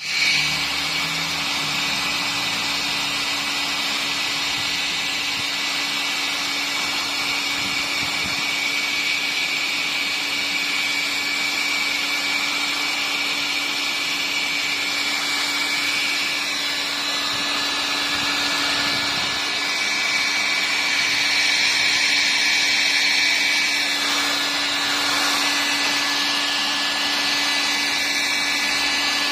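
Electric heat gun running steadily, its fan blowing hot air with a constant hum, slightly louder about two-thirds of the way through. It is warming gel filler patches on a fibreglass boat hull that stayed tacky in the cold and would not cure.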